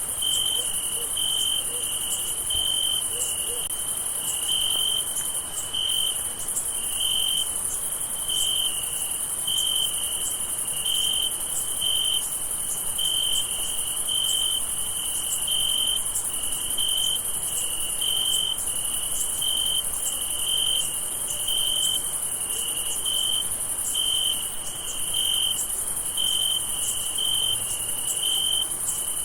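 Crickets chirping in a summer night chorus: a steady high-pitched trill with a lower chirp pulsing in a regular rhythm, about two pulses a second.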